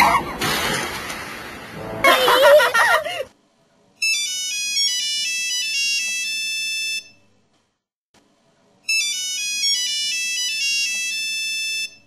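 A loud, noisy sound with a wavering pitch for the first three seconds. Then an electronic mobile-phone ringtone plays its high-pitched beeping melody twice, about three seconds each time, with a short silence between.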